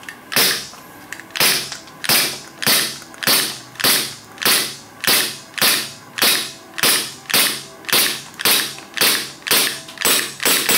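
WE Glock gas blowback airsoft pistol firing a steady string of shots, about one every 0.6 seconds, each a sharp crack with a brief hiss of gas and the clack of the slide cycling.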